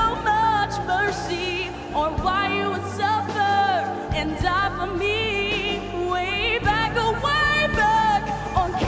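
Gospel vocal group singing wordless runs and wavering held notes over a live band accompaniment with a steady bass.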